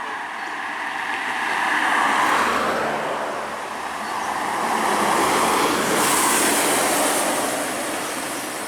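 Road traffic passing close by: a rush of engine and tyre noise that swells about two seconds in and again from about five seconds, with no horn playing.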